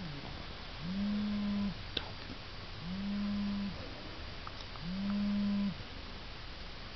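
Pug snoring in its sleep: three long snores of steady pitch, evenly spaced about two seconds apart.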